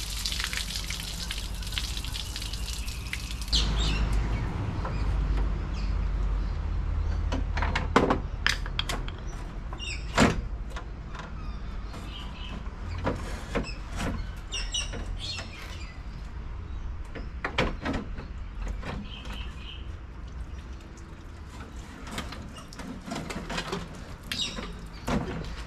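Water running hard from a garden hose, shut off suddenly a few seconds in. Then come scattered clinks and knocks of hand work in the engine bay, with a few bird chirps.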